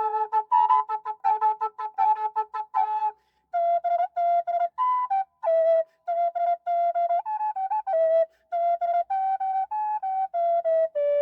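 Native American style double-chambered drone flute, a G minor flute tuned to 432 Hz, being played. For the first three seconds a steady drone sounds under quick tongued melody notes. After a brief pause the melody continues alone in slower held notes, with some slides between pitches.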